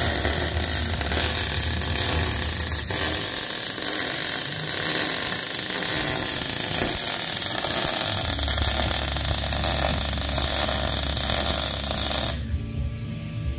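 MIG welding arc from an Arc Captain MIG 200 running one continuous bead on a steel truck frame rail, a steady crackling hiss that stops abruptly near the end.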